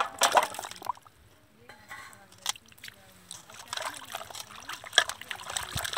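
Water sloshing and splashing in a steel basin as hands drop in and wash cut pieces of snake gourd, in irregular bursts, loudest just after the start and about five seconds in.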